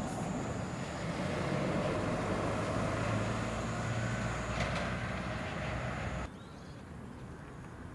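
Steady low rumble and hiss of background noise with a faint hum, like distant traffic. It cuts off suddenly about six seconds in, leaving a much quieter hiss.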